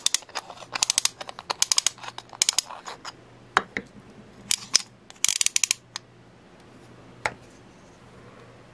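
Pawl of a replica 1895 patent ratchet wrench clicking over the ratchet teeth of its disc as the disc is spun round and the handle worked, in quick rattling runs of clicks through the first six seconds, then a single click near the end.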